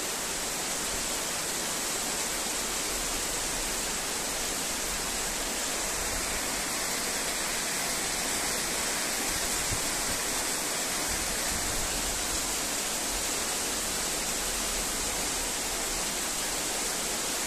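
Heavy thunderstorm rain pouring down steadily, an even hiss with no break.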